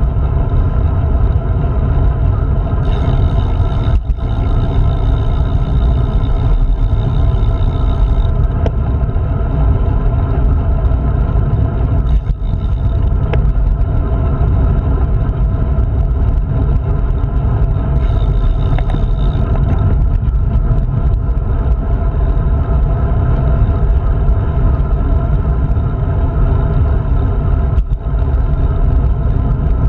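Loud, steady wind buffeting on a handlebar-mounted action camera's microphone while riding a road bike. A higher hiss joins in for a few seconds twice.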